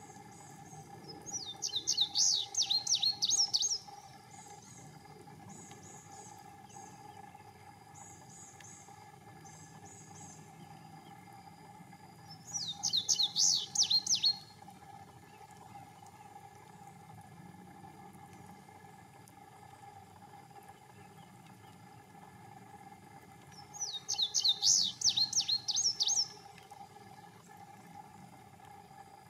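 Male indigo bunting singing three songs, about ten seconds apart. Each is a quick, bright series of high notes lasting about two seconds.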